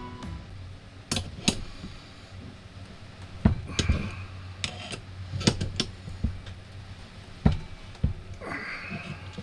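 Scattered metallic clicks and knocks of wrenches and a bearing puller being worked, as the puller's forcing screw is turned to draw the bearing race off a motorcycle steering stem.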